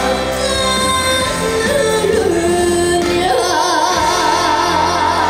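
A female trot singer singing live over band accompaniment. A little past halfway she holds one long note with a wide vibrato.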